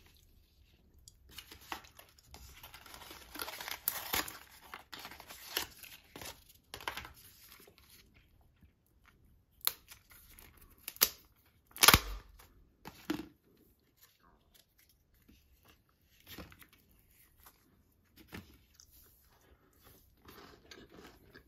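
Handling a Kinder Joy egg: crinkling and tearing of its foil and plastic packaging for several seconds, then a few sharp clicks of the plastic toy capsule near the middle, the last the loudest, followed by scattered small rustles.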